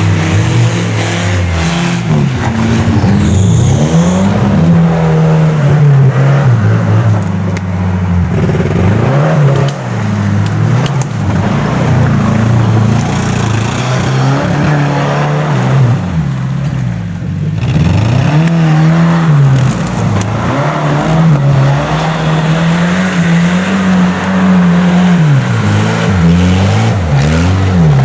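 Off-road 4x4's engine revving up and down over and over, its pitch rising and falling every second or two.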